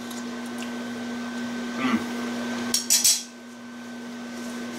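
A metal spoon clatters down onto a ceramic plate about three seconds in, a short cluster of clinks. Underneath, a microwave oven hums steadily as it runs.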